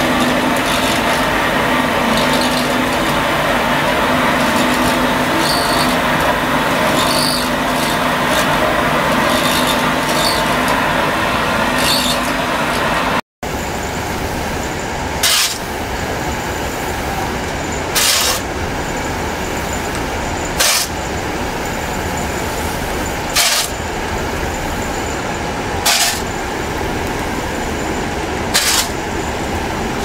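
Continuous carbonization furnace machinery running with a steady mechanical drone and a few held tones. After a break about 13 seconds in, the drone goes on, and a sharp scrape of a metal scoop digging into charcoal powder comes about every two and a half seconds.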